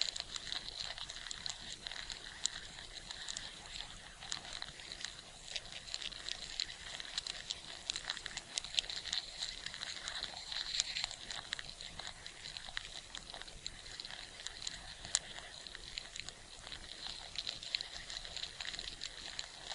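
Ants rustling and clicking: a dense, irregular stream of tiny ticks and crackles over a high hiss.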